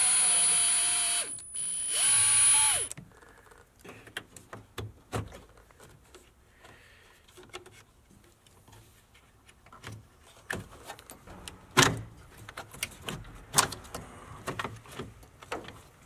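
Power drill boring a hole through the plastic housing of a pickup's underhood fuse box, running with a steady whine for about a second and a half, a short pause, then about another second. After that, only scattered quiet clicks and knocks of plastic parts being handled.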